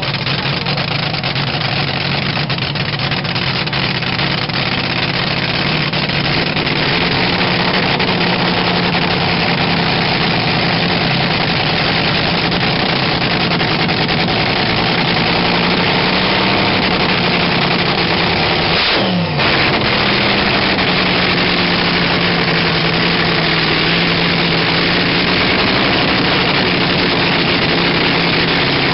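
Supercharged Daimler hemi V8 dragster engine running on nitromethane through open exhaust pipes, at a loud, steady idle. About two-thirds of the way through, the pitch drops sharply for a moment and then recovers.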